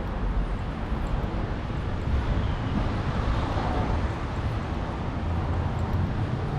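Steady outdoor ambient noise: a constant low rumble with a hiss over it and no distinct events.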